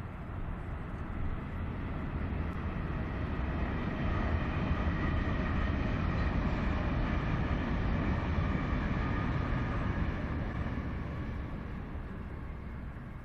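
A GWR Intercity Express Train (Class 800/802) passing at a distance. Its rumble builds over about four seconds, holds, and fades near the end, with a faint high whine over it. A steady low wind rumble runs underneath.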